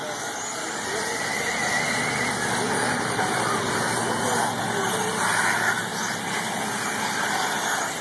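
Several radio-controlled off-road buggies racing on a dirt track, their motors whining and rising and falling in pitch as they speed past.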